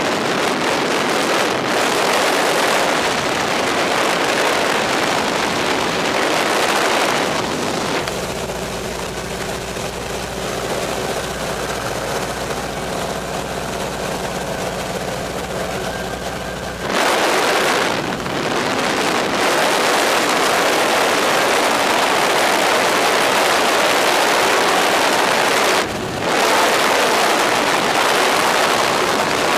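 1940 Waco biplane's radial engine running at high power with heavy wind rush on the microphone as the plane rolls fast down the runway. For several seconds in the middle the rush drops away and a steadier engine hum with clear tones comes through, then the loud rushing returns abruptly.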